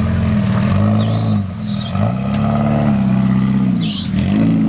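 Suzuki Samurai's swapped 1.6 16-valve four-cylinder engine revving up and falling back again and again, about four times, as it is worked on a climb. Two brief high squeaks cut through, about a second in and near the end.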